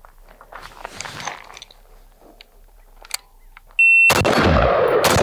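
A shot timer's short high beep, then an AR-15-style rifle firing two shots about a second apart, each with a long echoing tail: the start signal of a timed five-shot drill and its first rounds. Before the beep there is only faint shuffling.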